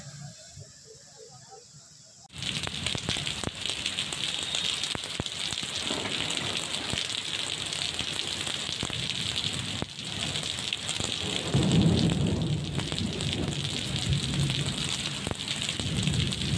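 Heavy rain pouring onto pavement and standing water: a steady dense hiss that comes in suddenly about two seconds in, after a quieter start. A deeper rumble swells up for a couple of seconds a little past the middle.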